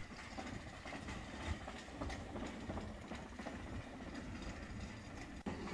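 Faint outdoor street ambience with light, uneven taps of footsteps on paving, as someone walks along a promenade.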